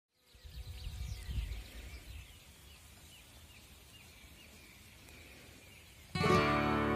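Birds chirping in a meadow with short, repeated falling notes, over a low rumble of wind buffeting the microphone during the first two seconds. About six seconds in, strummed acoustic guitar music starts loudly.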